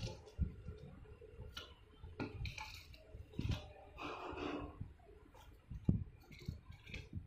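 Faint scattered clicks, knocks and rustles of plastic toys being handled.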